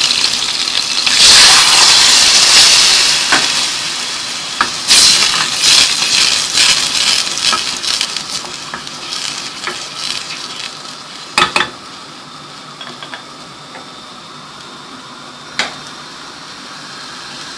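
White vinegar poured onto hot ghee and fried garlic in a pot: a loud sizzle that surges about a second in and dies away over the next several seconds. A spoon stirs and clinks against the pot now and then.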